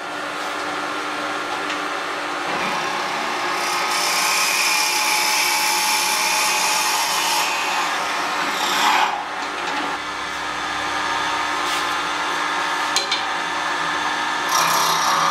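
Electric wood lathe running while a 7 mm drill bit in the tailstock chuck is fed into the end of the spinning wooden blank, boring a hole. The drilling noise is strongest from about four to seven seconds in, and near the end a hand tool is held against the spinning end and cuts the wood.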